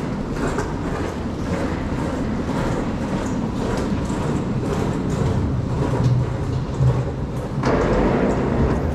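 VIA Rail passenger train running on the tracks: a steady low rumble with irregular clicks from the wheels and rails. It grows louder and rushier near the end.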